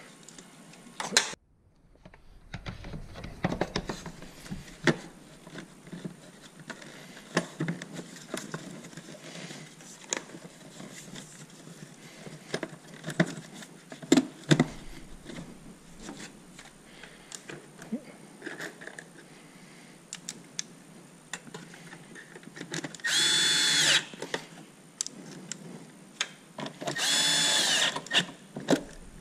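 Plastic trim and an air filter housing knocking and clicking as they are handled and fitted. Near the end, a cordless drill runs twice, about a second each time, with a steady whine as it drives in bolts.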